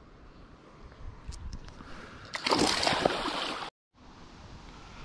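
Loud splashing in water lasting about a second, stopping suddenly.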